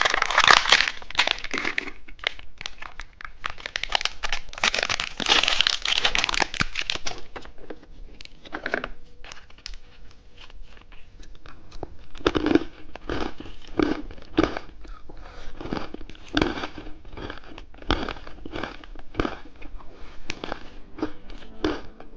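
Crinkly candy wrapper rustling and tearing as a toy-car surprise egg is unwrapped, dense for the first several seconds. Later comes a long run of short sharp clicks and taps.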